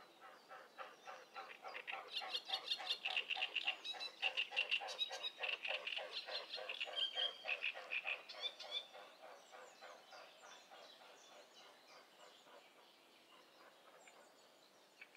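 An animal calling in a fast, even series of croaking pulses, about six a second, that builds up over the first two seconds, keeps going for several seconds and fades out about nine seconds in.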